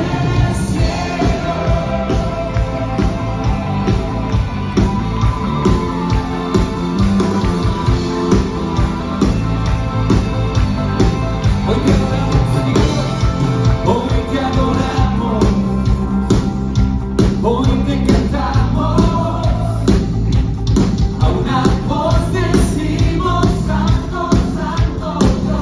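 Live Christian worship band playing loud amplified music: several singers on microphones over drums and electric guitar, with a steady beat.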